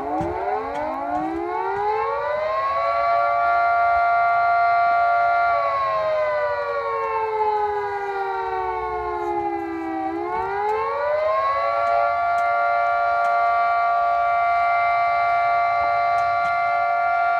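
Air-raid-style house siren winding up from a low pitch to a steady high wail, holding it, sagging lower over several seconds, then winding up again and holding the wail.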